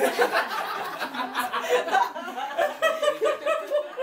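Laughter, a woman's among it, with a quick run of even 'ha-ha-ha' pulses near the end.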